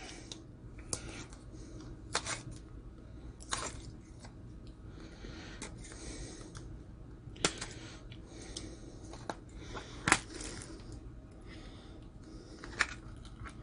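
Light, scattered clicks and taps of small cardboard knife boxes being opened and cheap assisted-opening folding knives being handled, about seven sharp ones, over a faint steady hum.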